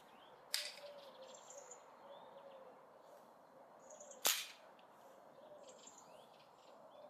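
Two sharp metallic clicks from the lock mechanism of a Hall flintlock rifle's receiver as it is handled at the trigger: a small one about half a second in and a louder one about four seconds in. Faint bird chirps sound throughout.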